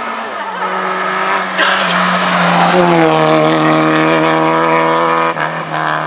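A historic rally car's engine is running hard at high revs as the car approaches. A rush of tyre noise comes in about one and a half seconds in, then the engine note holds steady until it drops off abruptly near the end.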